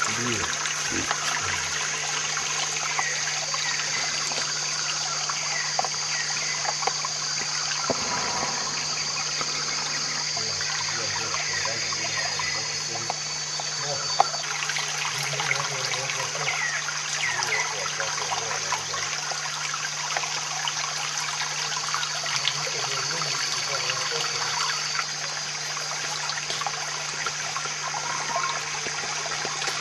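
Shallow forest stream trickling and splashing over rocks, a steady running-water sound, with a steady high-pitched whine over it.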